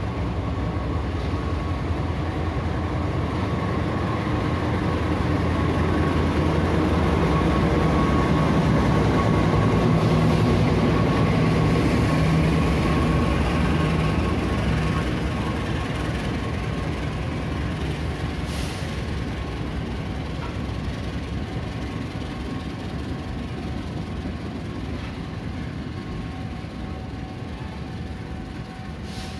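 Diesel-hauled passenger train pulling slowly into a station. The locomotive's engine drone swells to its loudest about ten seconds in, then gradually fades as the long line of coaches rolls past.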